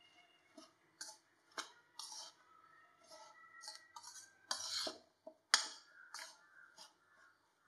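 Metal spoon stirring dry ragi flour and chopped vegetables in a ceramic bowl: irregular scrapes and clinks of the spoon against the bowl, loudest about four and a half and five and a half seconds in.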